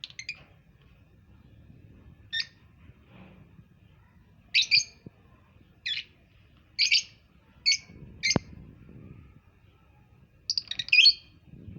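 A small pet parrot giving short, sharp chirps, about eight spaced irregularly, with a quick flurry of them near the end.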